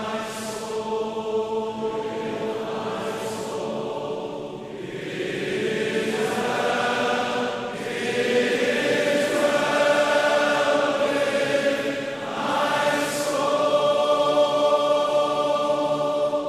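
Voices singing a slow hymn in long, held notes, phrase by phrase, growing louder about halfway through.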